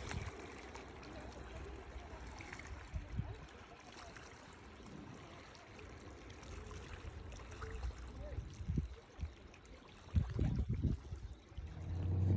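Faint trickling water, with a few low thumps about ten seconds in.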